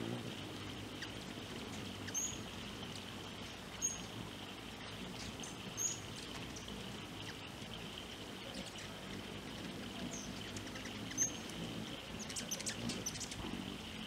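Hummingbirds giving short, high chip notes: single chips a second or two apart, then a quick run of rapid ticking chips near the end. A steady high background hum runs underneath.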